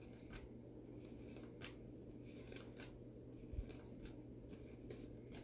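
Faint, irregular swishes and light ticks of baseball trading cards being slid one at a time off a stack by gloved hands, against a low steady hum.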